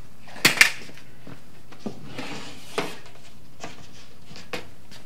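Wooden cabinet panels being handled as a side panel is pressed into the face frame's glued slot. There are two sharp clacks about half a second in, then a short scrape and a few light taps.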